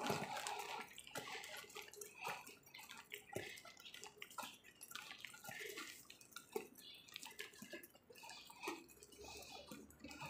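Faint, irregular light clicks and rustles over a soft hiss: footsteps and handling noise of a person walking.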